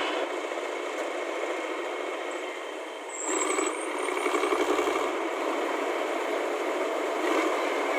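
Machine engine running steadily with a rattle, a little louder from about three seconds in, with a brief high squeal just after that change.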